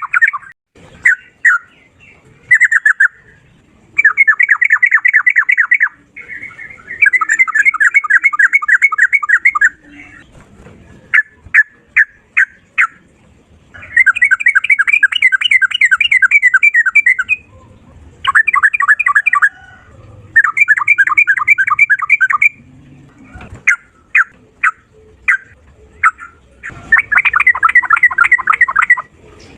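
Yellow-vented bulbul (trucukan) singing in rapid-fire 'ropel' runs, loud and sustained in one breath. It gives bursts of about seven quick repeated notes a second, each run lasting two to three seconds, with separate single chirps between the runs.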